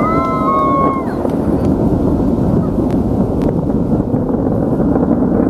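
Falcon 9 rocket launch heard from a distance as a steady, continuous rumble. A high, drawn-out pitched sound rises and holds through the first second.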